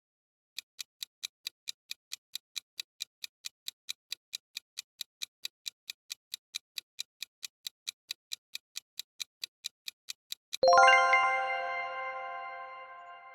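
Countdown-timer sound effect: rapid clock-like ticks, about four or five a second for some ten seconds, then a bright bell chime about ten and a half seconds in that rings on and fades.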